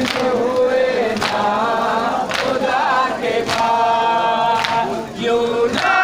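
Crowd of men chanting together in unison, with a sharp beat struck about once a second.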